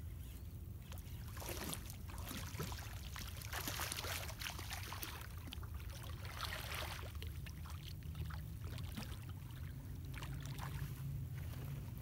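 A hooked channel catfish splashing at the water's surface as it is reeled toward the bank, in swells about three and six seconds in, over a steady low wind rumble on the microphone and scattered small clicks.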